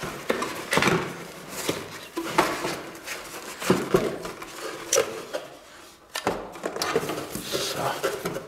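Handling noise from a cardboard graphics-card box and its foam insert as the card is lifted out: scattered sharp knocks and taps among rustles and scrapes.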